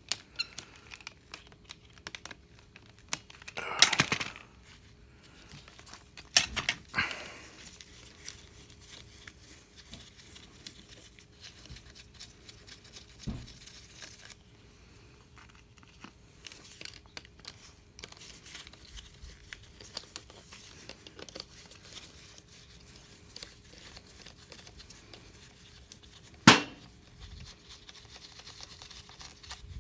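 A power steering pump being taken apart by hand: scattered small clicks and clinks of metal parts and a socket wrench being handled, with a louder rustling burst about four seconds in, another around seven seconds, and one sharp knock near the end. A faint steady hum sits underneath.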